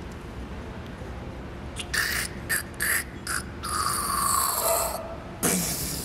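A person making a mechanical sound effect with their mouth: a rapid run of short hissing clicks, then a longer hiss that falls in pitch, and a last sharp burst near the end.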